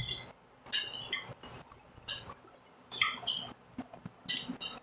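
Metal fork clinking and scraping against a glass plate while gathering food, in about half a dozen short bursts with brief pauses between.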